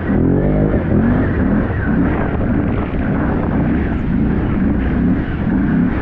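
Can-Am ATV engine revving under riding, climbing sharply in the first second, then surging up and down in short repeated pulses over a steady rushing noise.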